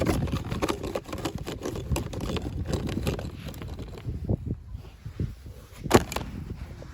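Handling noise of toy packaging being opened: irregular rustling, crinkling and clicking of plastic and cardboard, with one sharp snap about six seconds in.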